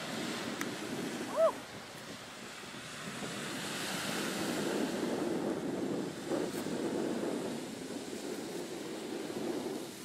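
Ocean surf washing on the shore with wind buffeting the microphone, the wash swelling a few seconds in. A single short chirp rises and falls about a second and a half in.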